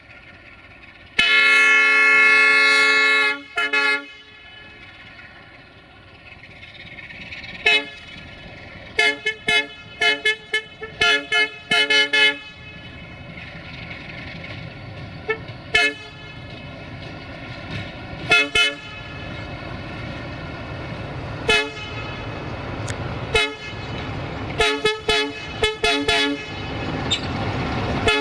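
060-DA (LDE2100) diesel-electric locomotive sounding its horn: one long blast about a second in, a short toot just after, then many short toots through the rest. Under the horn its Sulzer diesel engine grows steadily louder as the locomotive approaches.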